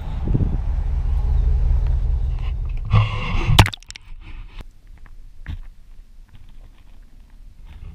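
A loud, low rumble with a steady hum that cuts off abruptly about three and a half seconds in. After it, muffled underwater sound from a submerged camera, with faint scattered clicks.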